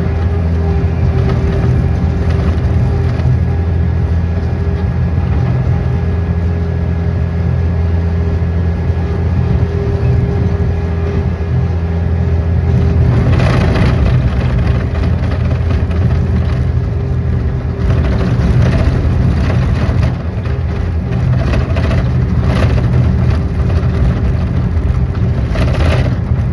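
An engine running steadily, with rough crunching noises several times in the second half.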